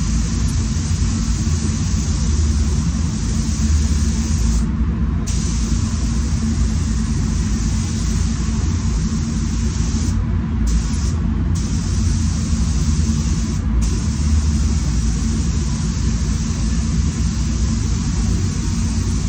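Paint spray booth fans running with a steady low rumble under the hiss of a SATA Jet 5000 RP spray gun spraying paint. The hiss stops briefly four times, as the gun trigger is released between passes, while the booth rumble carries on.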